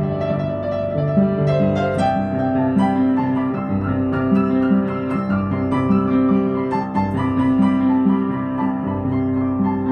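Gentle piano music with held notes over a repeating pattern of low notes.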